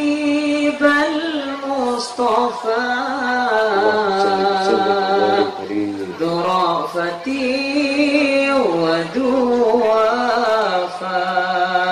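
A man's voice chanting unaccompanied into a microphone, long held notes with ornamented bends in pitch, pausing briefly between phrases.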